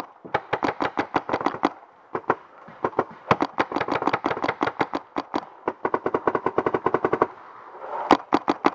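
Paintball marker firing rapid strings of shots, about ten a second, with short breaks about two seconds in and near the end.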